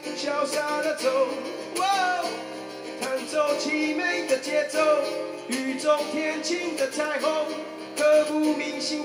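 A man singing a Mandarin love song live into a microphone, accompanying himself on a strummed acoustic guitar.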